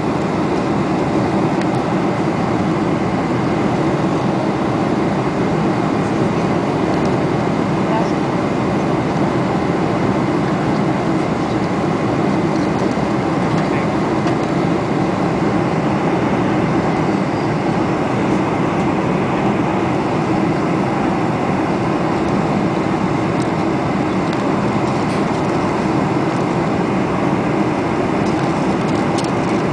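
Steady airliner cabin noise inside a Boeing 747-400 in flight: the even drone of its four engines and the rush of air along the fuselage, with no change in level.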